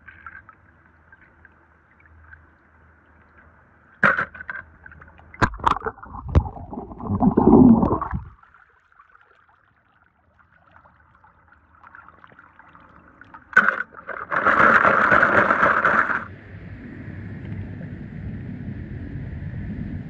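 Die-cast toy cars clicking and knocking as they are handled, with two louder bursts of splashing water, then a steady bubbling of churning water.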